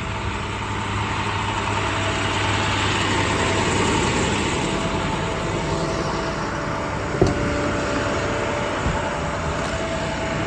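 Truck's MaxxForce diesel engine idling steadily, with one short knock about seven seconds in.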